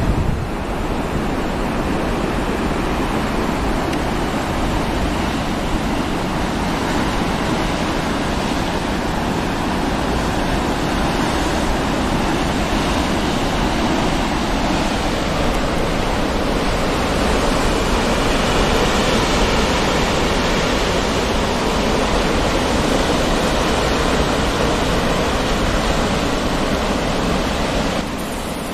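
Ocean surf breaking on a rocky shore, a steady rush of waves without a break.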